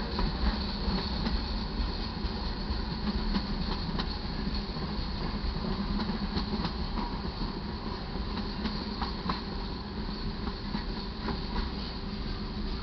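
A slow freight train's cars rolling past: a steady rumble of steel wheels on the rails, broken by irregular sharp wheel clicks.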